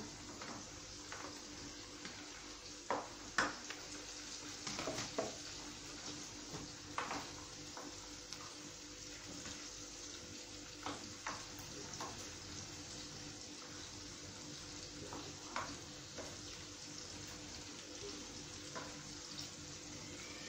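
Chicken pieces frying in a pan, a faint steady sizzle, with scattered clinks and knocks of kitchen utensils, the loudest about three seconds in.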